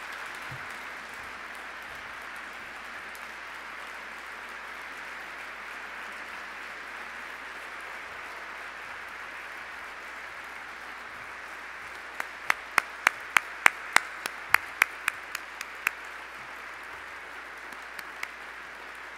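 Audience applauding steadily. About two-thirds of the way in, one person's claps close to the microphone stand out as a quick run of a dozen or so loud, sharp claps, with two more near the end.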